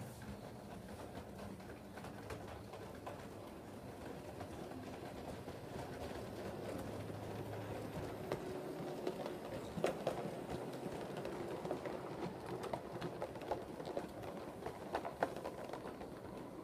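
7mm-scale model steam train with coaches running past: a faint motor hum and a scatter of wheel clicks on the track, getting louder about halfway through as it comes nearer.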